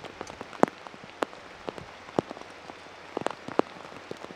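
Raindrops striking a hard surface close by: sharp, irregular ticks, roughly two a second, over a quiet background.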